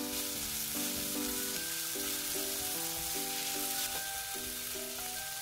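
Julienned onion and carrot sizzling as they stir-fry in olive oil in a frying pan, tossed about with chopsticks, under a light waltz tune.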